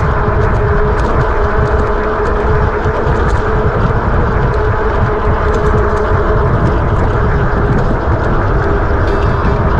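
Steady wind and road rumble on a moving camera while riding, with a faint steady hum underneath.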